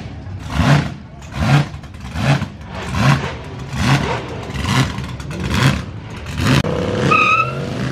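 Turbocharged burnout ute's engine being blipped over and over, each sharp rev rising and falling about every 0.8 s. A brief high, slightly rising whistle sounds near the end.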